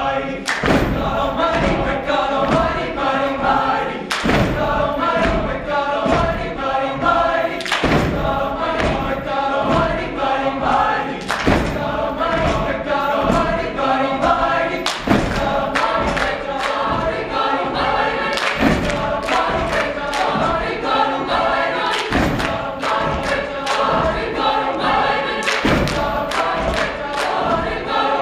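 Mixed high school choir singing a spiritual work song in full harmony, with a sharp percussive hit landing about every three and a half seconds like the beat of a work song.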